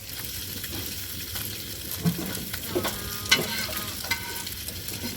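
Fish frying in oil on a tawa griddle, a steady sizzle, with a few sharp knocks about two to four seconds in.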